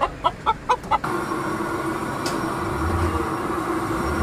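Chickens clucking in a quick, even run of about four clucks a second, cutting off about a second in. A steady hum with a low drone follows.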